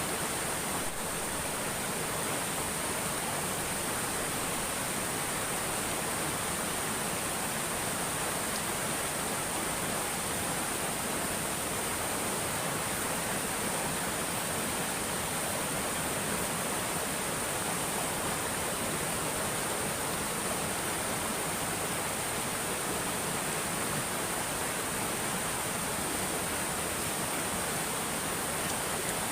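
Steady, even rushing noise with a constant high hiss above it, unchanging throughout.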